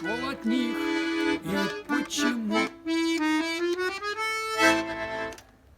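Accordion playing the closing phrase of a song, with a rising run that ends on a final sustained chord about five seconds in, which then cuts off.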